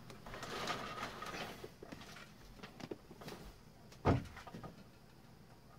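Faint rustling and small clicks of hands handling wires and cardboard boxes, with one sharper knock about four seconds in.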